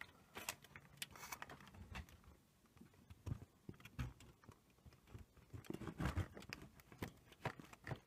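Faint, scattered clicks and light knocks of hands and tools working on a circuit board during desoldering of a rotary encoder, with a few louder knocks about halfway through and near the end.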